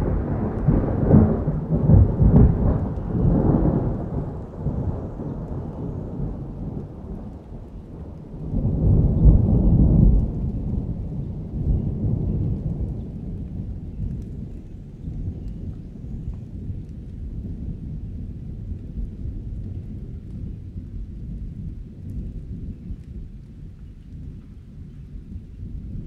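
Summer thunderstorm: rolling thunder that fades over the first few seconds, a second heavy roll of thunder about nine seconds in, then a low lingering rumble over steady rain.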